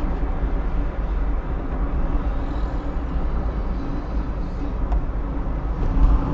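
A road vehicle moving along the road: steady engine and road rumble, heaviest in the low end, with no horn sounding.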